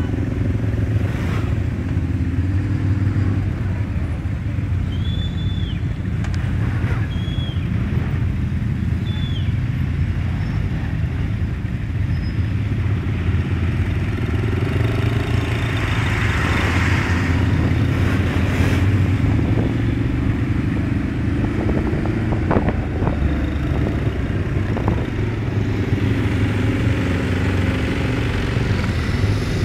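Quad bike (ATV) engines running at low speed in a convoy, a steady low engine drone close to the microphone, with a lorry passing about halfway through.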